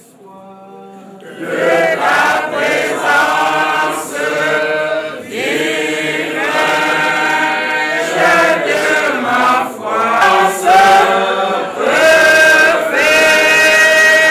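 A congregation of men and women singing a hymn together, coming in loudly about a second and a half in.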